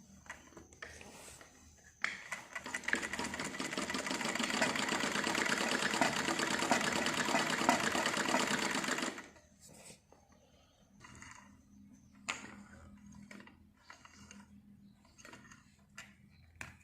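Household sewing machine stitching through cloth in one steady run of about seven seconds, starting about two seconds in and stopping abruptly, then a few light clicks. The machine has been freshly cleaned and oiled and runs freely, no longer tight.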